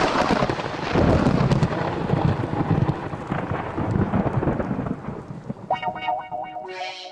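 Thunder rumbling over steady rain, a storm recording opening the track. It fades as guitar music with heavy effects comes in near the end.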